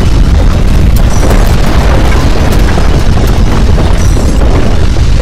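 Loud, continuous deep rumble with scattered crackles: the sound of violent earthquake ground shaking.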